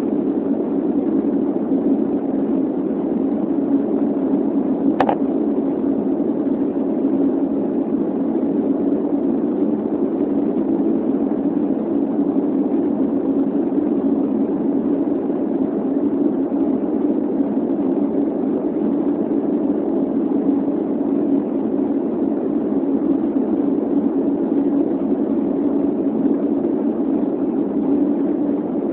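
Steady cabin roar of an Airbus A330 in flight, engine and airflow noise heard from inside the passenger cabin, even and unchanging throughout. A single brief click about five seconds in.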